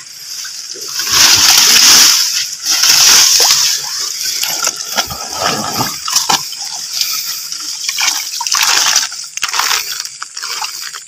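Wet grass rustling and water splashing and sloshing in irregular bursts as marsh vegetation is pushed aside and a PVC-pipe eel trap is handled in the water.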